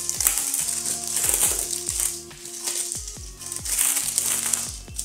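Clear plastic shrink-wrap being peeled and crinkled off a small cardboard product box, in two spells, over background music with a steady electronic beat.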